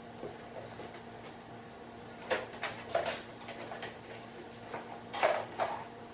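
Boxes and packaging being handled during unboxing: a few light knocks and rustles, in a cluster about two seconds in and another about five seconds in.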